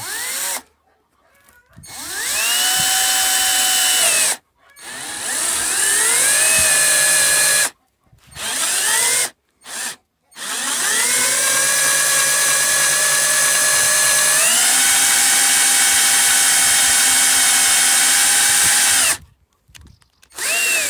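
Cordless drill spinning a hole saw through a plastic bumper cover, started and stopped in several short runs, each spinning up with a rising whine before holding steady. The longest run, starting about halfway in, steps up to a higher speed partway through.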